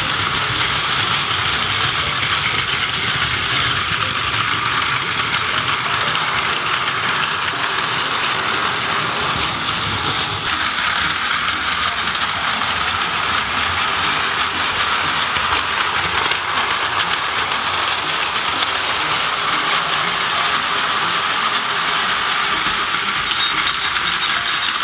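Plarail battery-powered toy trains running on plastic track: a steady whirring of their small gear motors with a light rattle of wheels and wagons. The sound shifts in character about ten seconds in.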